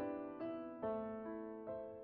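Soft background piano music, a few gentle notes struck and left to ring.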